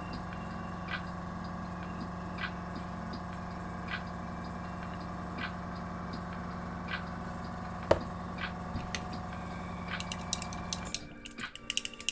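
Airbrush compressor running with a steady hum and a faint tick about every second and a half. It cuts off about 11 seconds in, and rapid rattling clicks follow.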